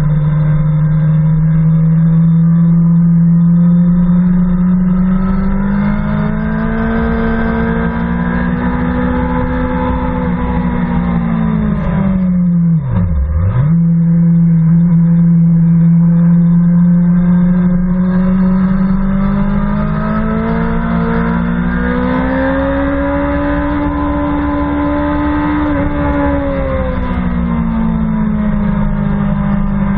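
BMW S 1000 RR inline-four sportbike engine running hard at track speed, heard from the rider's seat. Its note climbs and falls back twice as the bike accelerates and eases off, with a sudden brief drop and recovery in pitch about thirteen seconds in.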